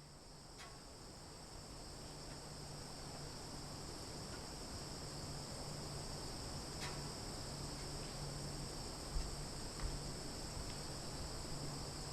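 Steady summer insect chorus of crickets and cicadas, a continuous high-pitched shrilling that fades in over the first couple of seconds. Two brief low bumps come about nine and ten seconds in.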